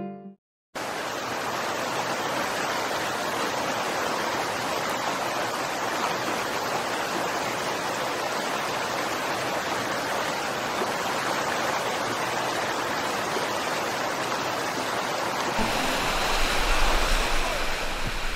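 Rushing water of white-water river rapids, a steady even rush that starts abruptly under a second in. Near the end it turns rougher, with low wind buffeting on the raft-mounted camera's microphone as the raft runs through the rapid.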